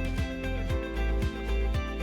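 Background music: a steady beat of deep drum hits about twice a second under sustained instrumental notes.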